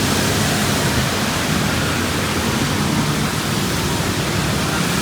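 Steady rain falling, an even hiss of water with no distinct drops or impacts standing out.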